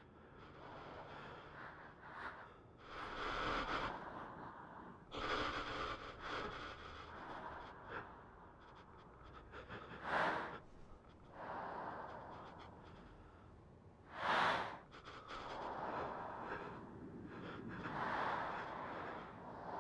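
A woman breathing heavily and unevenly, in swelling breaths with two sharp, loud gasps about ten and fourteen seconds in.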